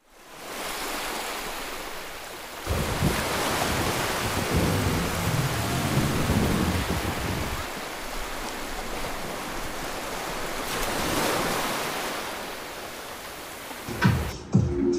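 Sea surf washing on a rocky shore, a steady wash that swells and eases, mixed with wind gusting on the microphone as a low rumble from about three seconds in.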